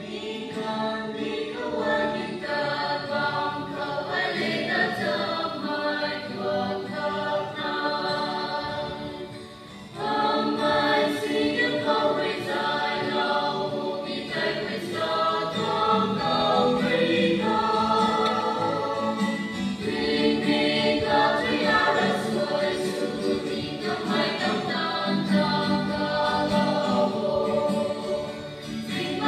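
Women's choir singing a gospel hymn in the Rongmei language, with acoustic guitar accompaniment; the singing starts at the outset and pauses briefly about a third of the way in before resuming louder.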